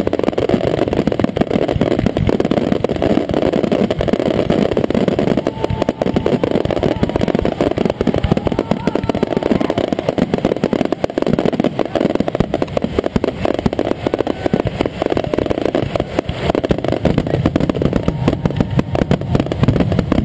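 Fireworks display firing a rapid barrage of aerial shells: dense, overlapping bangs and crackle with no gaps between them.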